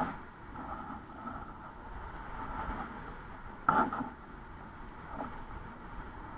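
Wind rushing over the onboard camera microphone of a descending stratospheric balloon gondola, with a sudden knock about three and a half seconds in and a fainter one near the end.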